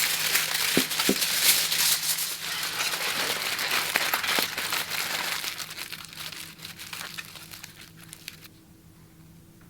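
Aluminium foil being scrunched up by hand into a crinkled ball, a dense crackling that is loudest in the first few seconds and fades away before the end.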